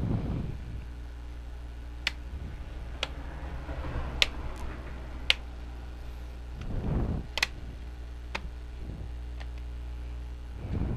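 Light handling of a laptop's copper heatsink being set back on the board: a handful of sharp, irregular clicks of small parts touching, with a few soft rustles, over a steady low hum.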